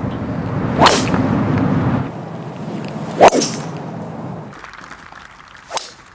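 Three sharp cracks of a golf driver's clubhead striking the ball on tee shots, each with a brief swish, spaced about two and a half seconds apart. The middle crack is the loudest and the last is faint, over a low background noise that fades about four and a half seconds in.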